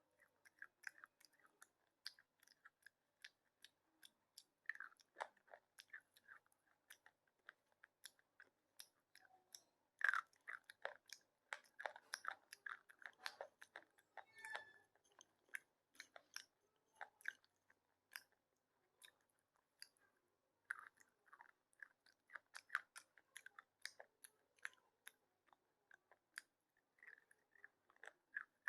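Slate pencil being bitten and chewed: a run of short, soft crunches and crackles at an irregular pace, coming thickest around ten to fifteen seconds in and again a little after twenty seconds.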